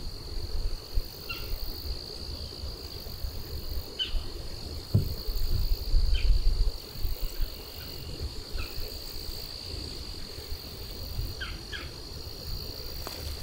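Steady insect chorus, a continuous high-pitched trill, with a few short bird chirps scattered through it. Under them is a low rumble, strongest in the first half.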